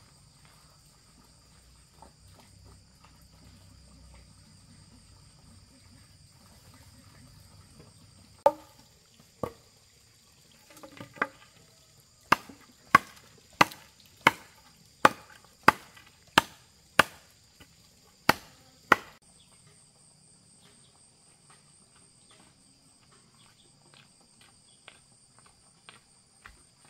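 About a dozen sharp chopping strikes of a blade into wood, starting about eight seconds in, settling into roughly one or two blows a second, and stopping about two-thirds of the way through. Insects, crickets or cicadas, buzz steadily throughout, and light footsteps on stony ground come near the end.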